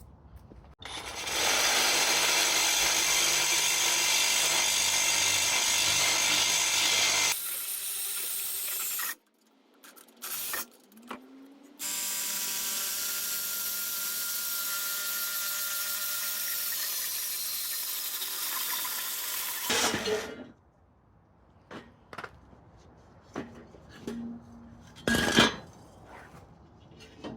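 Power cutting tool cutting through the old exhaust pipe in two long steady runs, from about a second in to about nine seconds and again from about twelve seconds to twenty, followed by a few light knocks.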